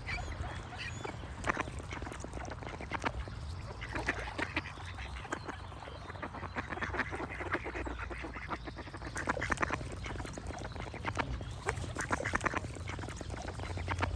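Ducks quacking repeatedly in quick, irregular series, over a low steady rumble.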